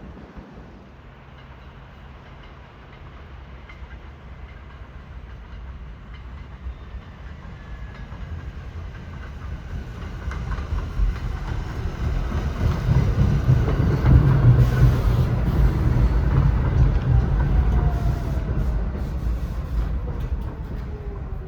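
New York City subway train pulling into the station: its rumble builds to the loudest point about two-thirds of the way through, while a whine falls steadily in pitch as the train slows.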